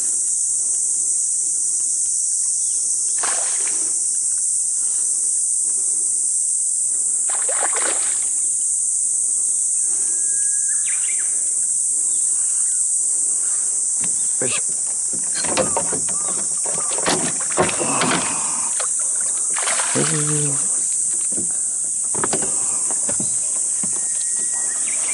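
A hooked small black bass splashing and thrashing at the surface as it is played to the boat, with a flurry of splashes for a few seconds past the middle before it is netted. A loud, steady high-pitched insect chorus buzzes throughout.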